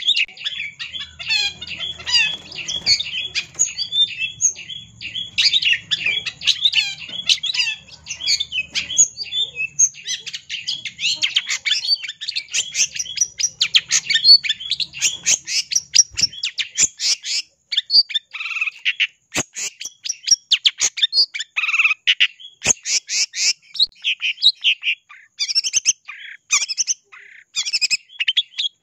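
Long-tailed shrike singing: a rapid stream of high, chattering notes with a few short pauses.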